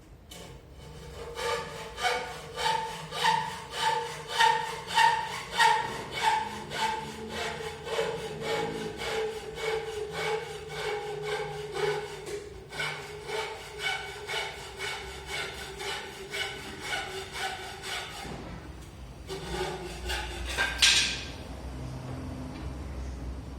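Kitchen door hinge creaking as the door swings slowly: a long pitched creak pulsing about one and a half times a second for some fifteen seconds, then a shorter, louder creak near the end.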